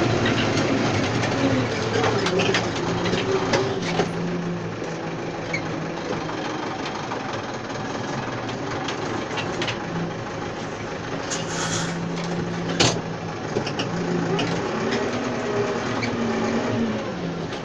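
Tractor engine running steadily while pulling a tine stubble cultivator, its pitch shifting a few times. The implement's frame adds scattered clicks and rattles, with one sharp clank about two-thirds of the way through.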